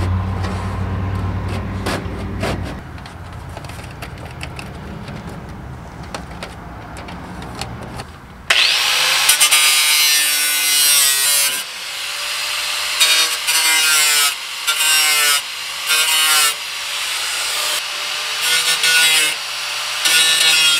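Handheld angle grinder starting abruptly about eight seconds in and grinding steel in a series of short loud passes, its pitch dropping each time the disc bites. Before it, a low steady hum.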